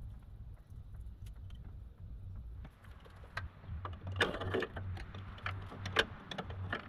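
Metal parts of a sawmill's height-adjust crank being handled and fitted: scattered clicks and knocks, with a scraping rattle about four seconds in and a sharp knock a little later, over a low steady hum.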